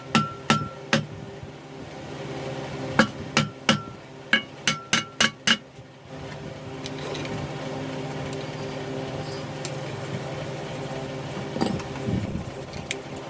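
Hammer blows on metal, quick ringing strikes in two runs, a few in the first second and about eight more between three and five and a half seconds in. A steady low machine hum runs underneath and continues on its own after the hammering stops.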